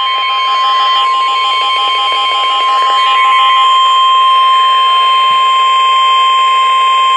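Emergency alert attention tone for a flash flood warning: a steady single-pitched tone near 1 kHz, like the NOAA Weather Radio warning alarm tone. For the first half a fast-pulsing beep sounds over it, then stops a little over three seconds in.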